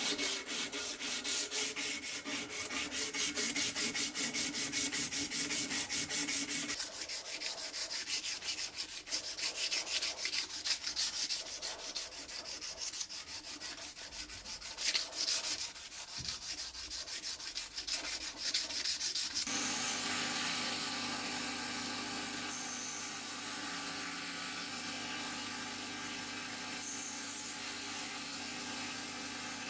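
A strip of abrasive cloth is pulled back and forth across a knife handle in rapid, even strokes. The strokes turn into slower, uneven hand sanding, and about two-thirds of the way in a belt sander takes over with a steady running hum.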